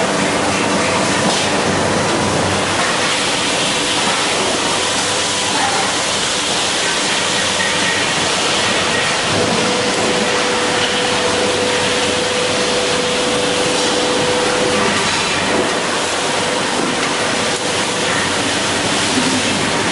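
Steady, loud industrial noise in a welding shop: a continuous rushing hiss over a faint low hum, with a thin steady whine for several seconds midway.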